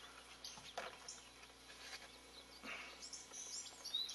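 Faint bird calls, short high chirps, over a quiet outdoor background, with a few soft brief noises.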